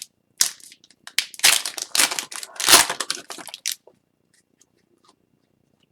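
Wrapper of an Upper Deck hockey card pack crinkling and tearing as it is opened, with the cards inside being handled. The rustling comes in quick bursts and stops about four seconds in.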